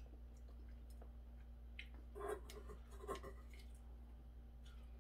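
Faint handling noises: a few soft rustles and clicks as dried laver (gim) sheets are handled, over a steady low electrical hum.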